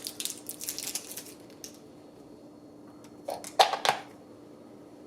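Crinkling and rustling of a plastic battery blister pack, then a few sharp plastic clicks and taps about three and a half seconds in as AAA batteries are fitted into the alarm clock's battery compartment.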